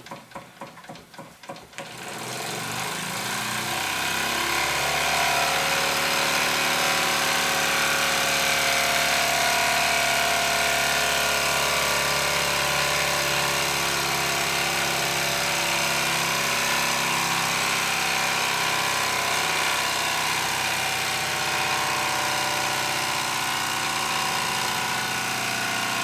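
Wilesco D20 toy steam engine running on live steam, its oscillating cylinder chuffing at about four beats a second. About two seconds in it speeds up into a loud, fast, continuous rattling buzz with steam hiss, as its steam valve is opened further.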